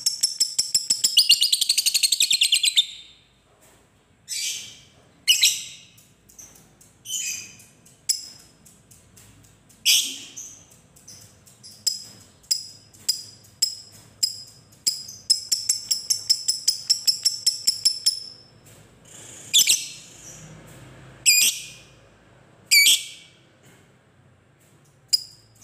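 Fischer's lovebird chattering ('ngekek'): a fast run of shrill, high chirps for about three seconds, then single sharp calls, then a second long run of chirps that speeds up midway, followed by a few more piercing shrieks.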